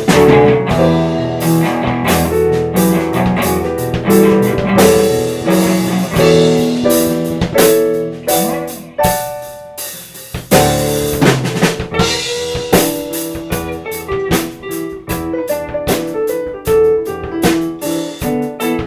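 Background music with a drum-kit beat and guitar; the drums drop out briefly about halfway through, then return.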